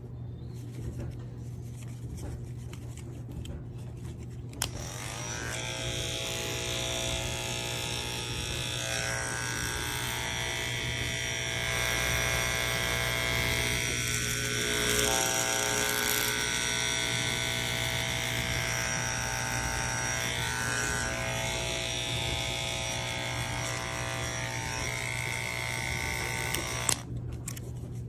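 Wahl electric pet clipper with a steel blade fitted, switched on with a click about four and a half seconds in and running with a steady electric hum, then switched off with a click near the end.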